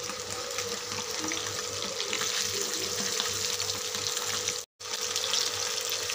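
Oil sizzling and crackling steadily around battered anchovies deep-frying in a kadai, with curry leaves and crushed garlic in the oil. The sound cuts out for a moment about two-thirds of the way through.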